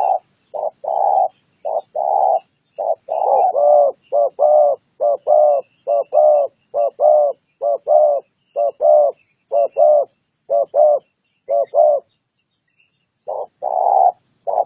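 Spotted dove (tekukur) cooing in a long, loud series of short notes, many of them in pairs, pausing briefly near the end before going on. This is the call style that Malay dove keepers call 'tarik akar'.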